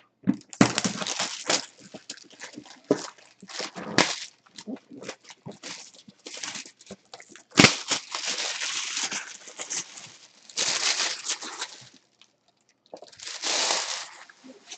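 Packaging being handled and opened: irregular rustling, scraping and tearing with scattered clicks, one sharp click about halfway through and longer stretches of rustling after it.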